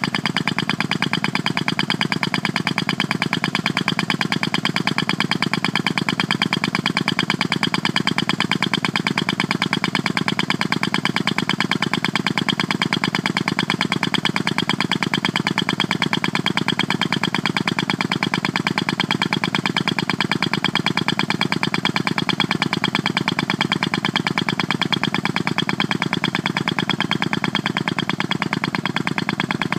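A steady mechanical buzz with a very rapid, even pulse, holding the same level throughout.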